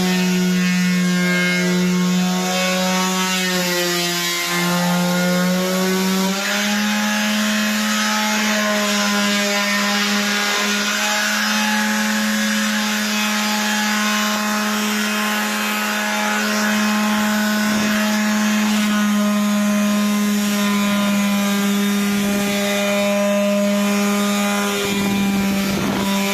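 Electric sander running against wood: a steady motor hum over the rasp of abrasive on the surface. Its pitch sags slightly, then steps up a little about six seconds in and holds.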